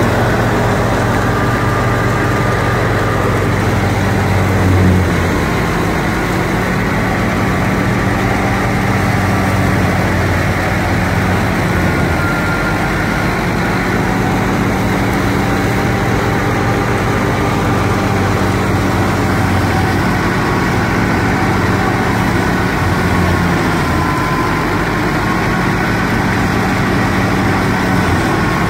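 Tractor engine running steadily under load, driving a wheat thresher as it is fed with straw: a continuous mechanical drone of engine and threshing machinery, briefly louder about five seconds in.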